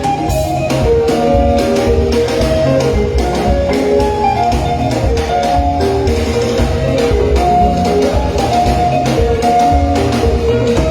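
Live sungura band playing: quick, interlocking electric guitar lines over a bass guitar and a drum kit keeping a steady beat.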